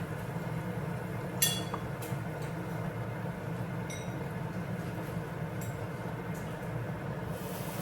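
Kitchenware clinking: one sharp ringing clink about a second and a half in, a lighter one at about four seconds and a few faint ticks, over a steady low hum.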